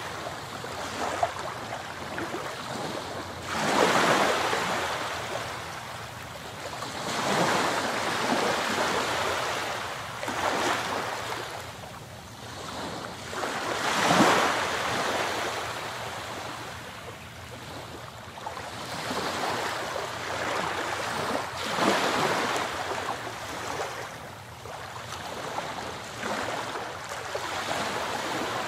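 Ocean surf: waves washing ashore in slow swells every few seconds, with a steady rush of water between them.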